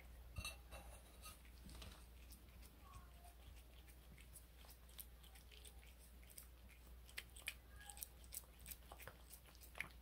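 Cat eating raw green tripe from a bowl: faint wet chewing and licking, with scattered short smacks that come more often in the second half.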